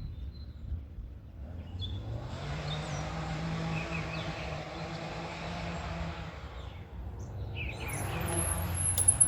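Qlife Racer electric mountain bike on a test ride: a steady hum of its motor and new 26-inch tire rolling. It comes in about two seconds in, fades out near seven seconds, and returns near the end.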